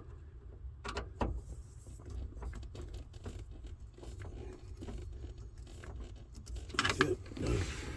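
Scattered light clicks, taps and rustling from handling tools and parts, over a low steady hum, growing busier and louder near the end.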